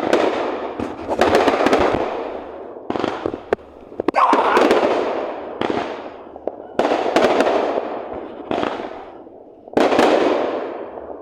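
Fireworks bursting one after another, about eight times, each a sharp bang that trails off in a fizzing crackle over a second or so.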